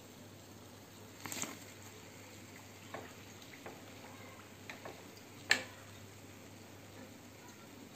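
Steel slotted spoon clicking against the frying pan while fried kachoris are lifted out of the oil and set down on paper towel: a few scattered light clicks and taps, the sharpest about five and a half seconds in.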